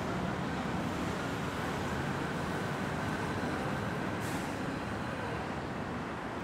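Steady hum of busy city road traffic, cars and motorbikes passing below, with a short hiss about four seconds in.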